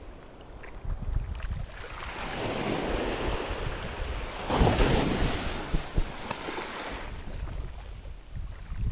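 Small ocean waves breaking and washing up the sand close by in shallow surf, the wash swelling to its loudest about halfway through and then easing, with wind buffeting the microphone.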